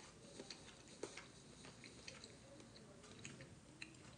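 Near silence with a few faint, scattered small clicks.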